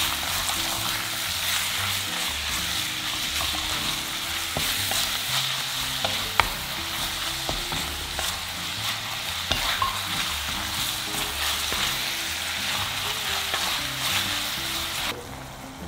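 Sliced pork and garlic sizzling as they are stir-fried in a clay pot and turned with a wooden spatula, with occasional clicks of the spatula against the pot; the sharpest comes about six seconds in. The sizzling drops away near the end.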